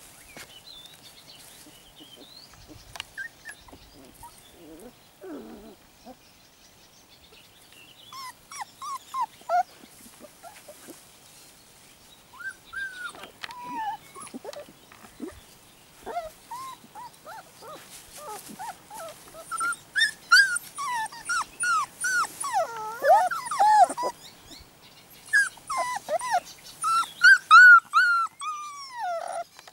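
A 4½-week-old puppy whining and whimpering in short, high calls that bend up and down in pitch. They come more often and louder through the second half.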